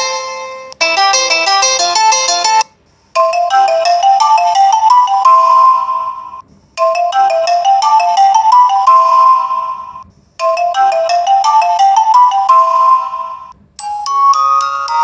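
Phone ringtone: a short synthesized melody of bright, bell-like notes that climbs in pitch, played three times over with a short pause between each. A different tone with faster notes starts near the end.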